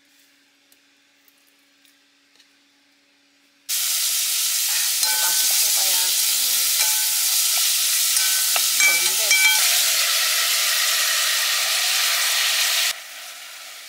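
Beef stir-frying in hot perilla oil in a pot: a loud, steady sizzle that starts suddenly a few seconds in, with a few short squeaks while it is stirred with a wooden spatula. Near the end the sizzle drops suddenly to a quieter hiss.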